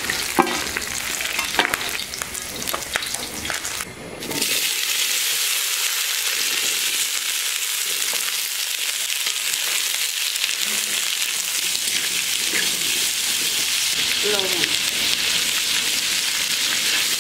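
Food sizzling in hot oil in a pan. In the first few seconds a spatula clicks and scrapes against the pan as the fried fish heads are lifted out. About four seconds in, after a brief dip, a louder, steady sizzle sets in.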